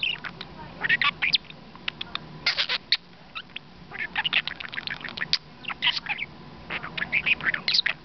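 Pet budgerigar chattering right at the microphone: bursts of rapid chirps, clicks and scratchy warbled notes, with a short lull about three seconds in.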